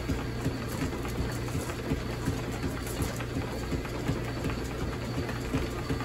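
Antique flat-belt-driven drill press and its pulleys running unloaded: a steady low hum with a regular clack about two to three times a second.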